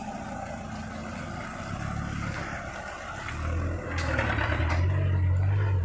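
Loaded light truck's engine working hard as it climbs through mud, rising to a louder, heavier rumble about three seconds in, with a sharp knock about four seconds in.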